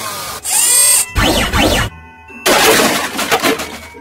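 A run of cartoon crash and smash sound effects: short noisy bursts in the first second, a heavy crash just after a second in, then a longer shattering clatter from about two and a half seconds that fades near the end.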